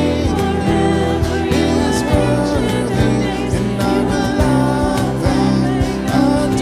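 Live worship band playing a slow song: vocalists singing over acoustic guitar, cajón, keyboard and bass, with regular soft drum strikes.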